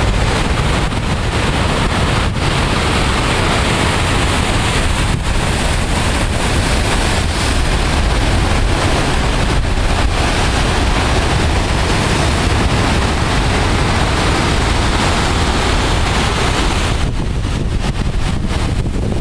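Heavy storm surf breaking and washing over a rocky shore in a continuous loud wash, stirred up by a post-tropical storm. Strong wind buffets the microphone with a low rumble throughout. The wash eases slightly near the end.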